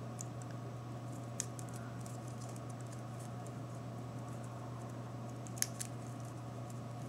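Folded magazine paper handled and pushed together by fingers, giving faint crinkles and a few sharp little clicks, one about a second and a half in and two close together near the end, over a steady low hum.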